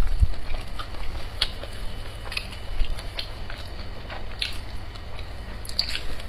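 Close-miked eating of a soft egg pancake: chewing and biting with scattered small wet mouth clicks and smacks over a low hum, and a cluster of clicks near the end.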